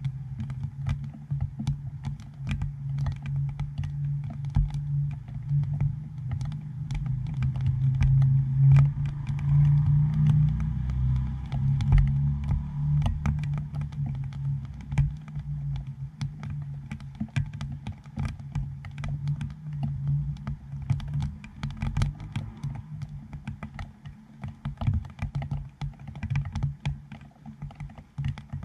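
Raindrops striking a GoPro dome housing: an irregular patter of sharp taps and clicks on the dome, over a low steady hum that swells for a few seconds about a third of the way in.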